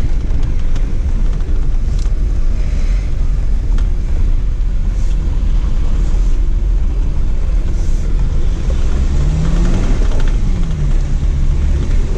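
Inside the cabin of a 2019 Jeep Wrangler Rubicon driving on a dirt track: a steady low rumble of engine and tyres, with the engine note rising and then falling again about nine to eleven seconds in.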